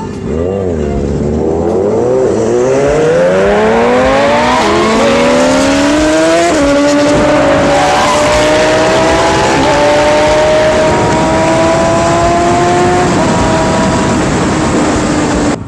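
Sport-bike engine pulling hard: the revs climb steeply through the first several seconds with gear changes, then hold a steady high pitch at speed, over loud wind rush.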